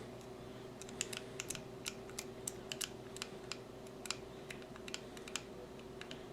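Master Lock 1530 combination lock dial clicking quietly as it is worked back and forth with the shackle held under tension, catching where the dial has seized up. A quick, irregular run of small clicks, several a second, from about a second in until near the end.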